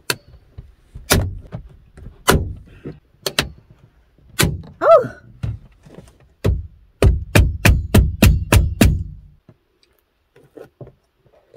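Hand staple gun snapping staples into the van's interior plastic window trim, each shot a sharp crack with a hollow thud from the panel. The shots come about a second apart at first, then a quick run of about eight in under two seconds before stopping.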